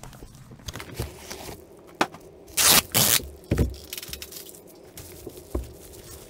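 Cardboard shipping box and bubble-wrapped package being handled: scraping and rustling of cardboard and plastic wrap with scattered clicks, a loud rustle about two and a half seconds in, then a soft thump as the wrapped box is set down on the table.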